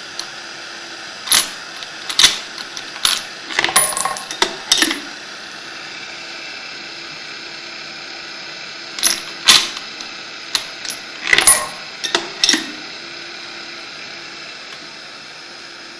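Brass rifle cartridge cases clinking sharply as they drop out of a homemade annealing machine into a plastic tub and onto other cases, a few single clinks then quick clusters, over the steady hiss of the gas torch flame that anneals them.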